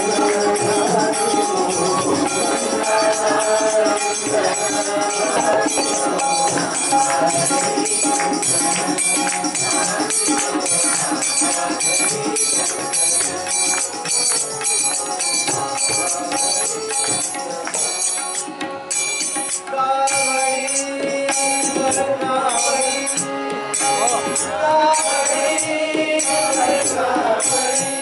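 Bhajan music played on harmonium and tabla, with a steady metallic jingling of small percussion above the held harmonium tones.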